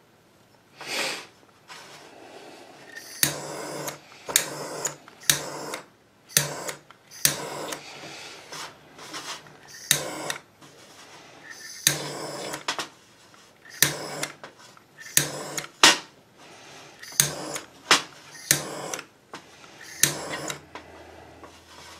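Handheld butane torch fired in short bursts, roughly one a second, each a sharp start and a brief hiss of flame, scorching a small pine carving black.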